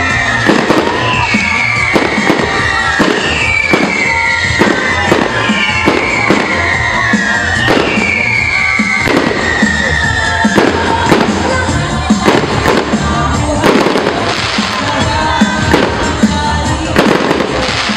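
Aerial fireworks bursting in a rapid string of bangs and crackles, one or two reports a second, with music playing underneath.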